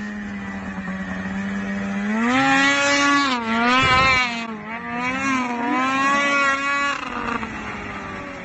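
Snowmobile engine running at steady revs, then revving up about two seconds in and rising and falling in pitch as the machine passes close by, with a rush of noise at its closest about four seconds in, before the engine note drops away near the end.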